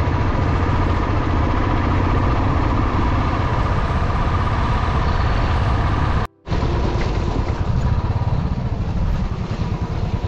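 Motorcycle engine running steadily at road speed, heard from the rider's own bike. The sound drops out for a moment a little after six seconds in, then the ride continues.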